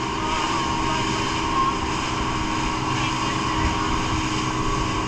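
Motorboat engine running steadily at speed, with the hiss and splash of water rushing past the hull and spray.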